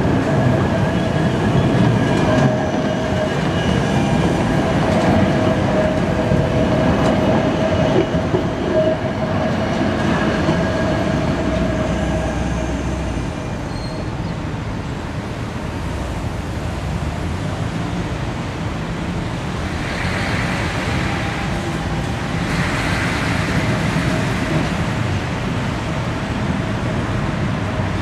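Articulated low-floor tram running past on a curved track loop: steady running noise with a held whine for about the first half, which fades around thirteen seconds in. Two short swells of hiss follow near the end.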